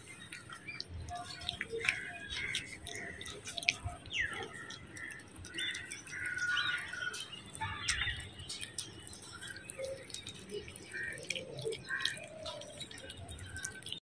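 Two cats eating soft food from stainless steel bowls: a scatter of small wet chewing and licking clicks, with short bird chirps now and then in the background.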